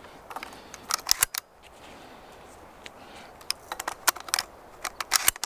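Shotgun shells being thumbed one at a time into a semi-automatic shotgun's tube magazine through the loading port. Sharp metallic clicks come in three clusters, about a second in, around three and a half to four seconds, and near the end.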